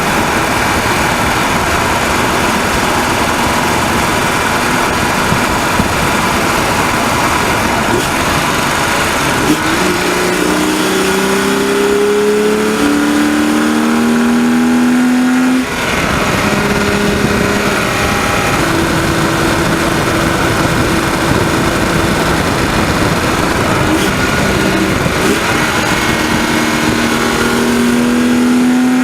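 BMW 130i's 3.0-litre straight-six heard from the engine bay while driving at speed, with a rattling, ticking noise whose cause the owner cannot find. The engine note climbs for several seconds about a third of the way in, drops suddenly about halfway, runs steady, then climbs again near the end, over constant road and wind noise.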